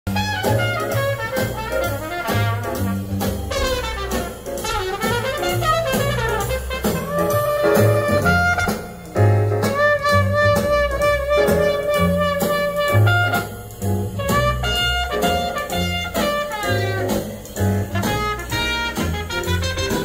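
Recorded jazz with horns and a pulsing bass line, playing loudly through a pair of Sonus Faber "The Sonus Faber" floor-standing loudspeakers and picked up by a phone in the room. The music drops away briefly about nine seconds in.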